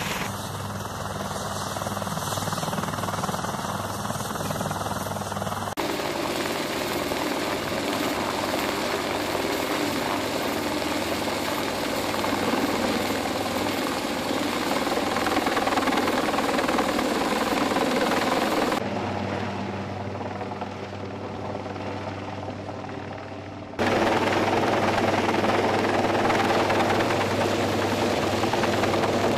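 UH-1Y Venom helicopter running, its rotor and turbine engines making a steady, continuous noise. The sound changes abruptly about six, nineteen and twenty-four seconds in.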